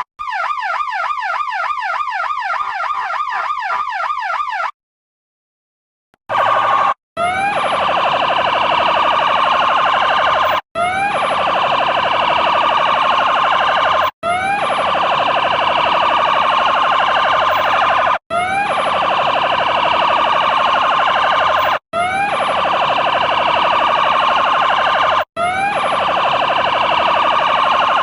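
Electronic siren running a fast yelp, its pitch sweeping up and down about three times a second, which stops abruptly near the start. After a short silence it switches to a harsh, steady horn tone that starts each time with a short upward glide, sounded in blasts of about three and a half seconds with brief breaks between them.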